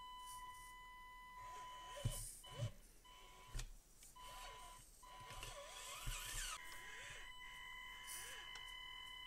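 Axial AX24 micro RC crawler climbing a wooden obstacle: a faint steady high whine from its motor and speed controller, with a lower motor tone rising and falling as the throttle changes. Several soft knocks sound as the tires and chassis bump over the obstacle, most of them in the first half.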